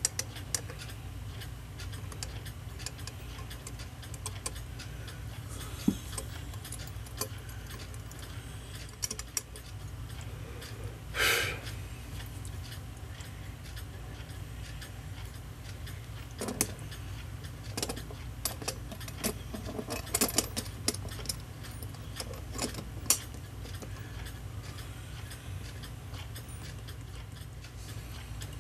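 Small metallic clicks and clinks of brass clock wheels and arbors being handled and fitted into a clock movement's plates. There is a louder scrape about eleven seconds in and a flurry of clinks in the second half, over a steady low hum and a clock ticking.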